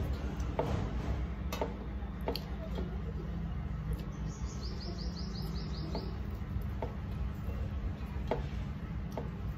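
Hand-eating sounds at a table: scattered light clicks and taps of hands working rice and curry on steel plates, over a low steady hum. About four seconds in, a small bird gives a quick run of about eight high chirps.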